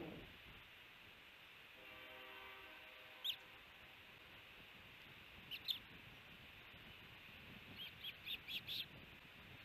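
Osprey giving short, high chirps, faint over light background hiss: a single chirp about three seconds in, a pair a couple of seconds later, then a quick run of five near the end.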